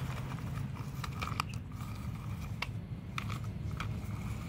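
Plastic toy crane truck pushed over gritty dirt: its plastic wheels crunch and scrape, with a handful of sharp clicks. A low steady rumble sits underneath.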